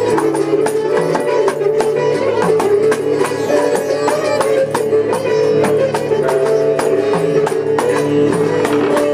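Sitar music over a steady drone, with hand percussion striking a quick rhythm throughout.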